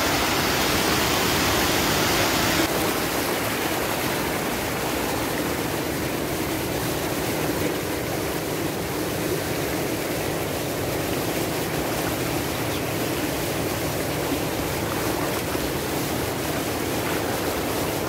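Steady rush of a shallow rocky stream, water pouring over and between stones in small cascades. It is brighter and a little louder for the first two or three seconds, then evens out.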